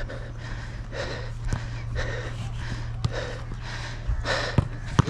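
A football player breathing hard and panting in repeated heavy breaths, with a few sharp knocks scattered through.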